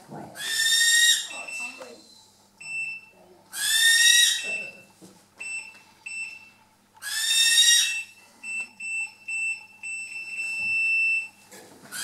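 Barn owl screeching: three high calls, each about a second long, a few seconds apart. A faint thin steady whistle-like tone comes and goes between the calls.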